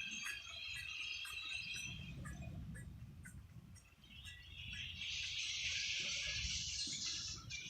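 A huge flock of birds calling all at once in a dense chatter. It thins out briefly, then about four seconds in it swells again into a thick, hissing wall of sound.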